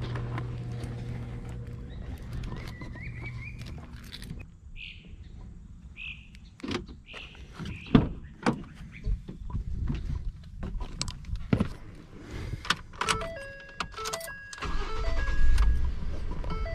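A garage door opener motor hums and stops about four and a half seconds in. Then come clicks and knocks of a Ford F-150 pickup's door handle and latch, the loudest about eight seconds in, and near the end the truck's chime beeps repeatedly as the engine cranks with a heavy low rumble and settles into a steady idle.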